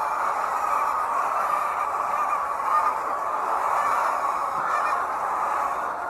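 A large flock of laying hens clucking and calling together in a steady, unbroken din.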